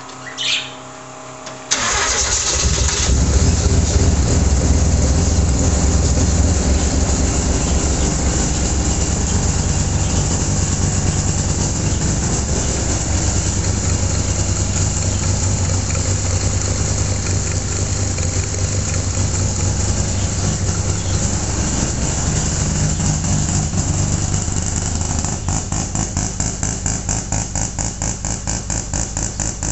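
Mazda RX2's bridge-ported 13B rotary engine starting about two seconds in, then running loud and steady with a strong low drone. Near the end the sound changes to a regular pulsing, choppy idle.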